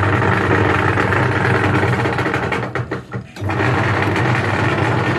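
LG twin-tub washing machine's wash motor and pulsator gearbox running with a loud rumble. It stops briefly about three seconds in and starts again. The owner puts the rumble down to worn pinion gears in the pulsator gearbox, which he says needs replacing.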